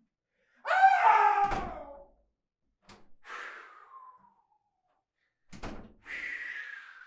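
Two heavy thumps, with a high squeal that falls in pitch before the first and a longer falling squeal near the end, separated by dead silence.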